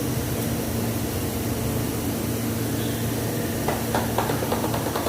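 Common-rail diesel engine idling steadily with a constant hum. Near the end a quick run of short sharp sounds is heard over it.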